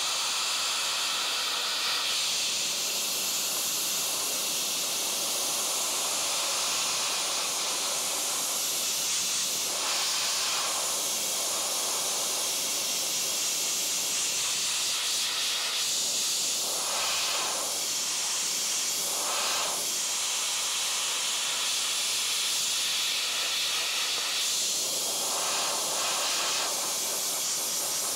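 Dry ice blaster running at its maximum 120 PSI, a loud steady hiss of the blast jet playing over a car's painted front guard, changing tone a few times.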